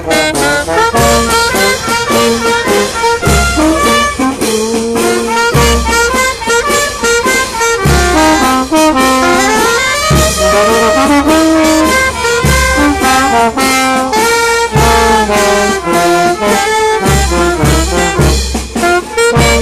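Live brass band playing loud festive music: brass melody lines over a steady drum beat.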